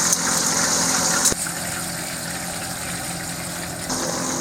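Steady hiss of chicken frying in hot oil. A click comes about a second in, after which the hiss is a little quieter.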